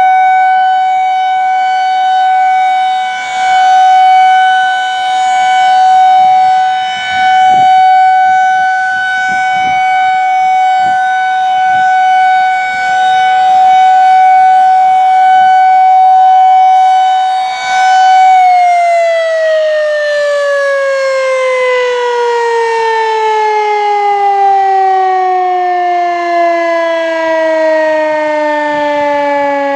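Federal Signal 2001-SRNB electromechanical tornado siren sounding its steady Alert tone, swelling and fading in loudness every few seconds as the rotating horn sweeps past. About two-thirds of the way through, the signal ends and the pitch falls steadily as the siren winds down.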